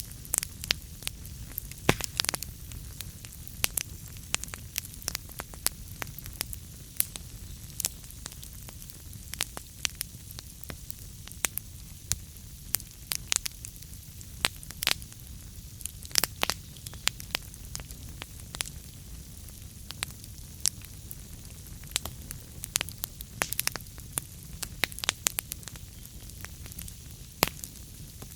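Wood fire burning in a fireplace: irregular sharp crackles and pops from the burning logs over a steady low rumble and hiss of the flames.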